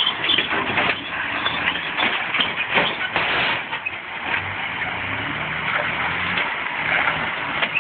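A four-wheel-drive's engine running low and slow as it tows a trailer loaded with firewood over bare rock, with a steady rushing noise and scattered knocks and rattles.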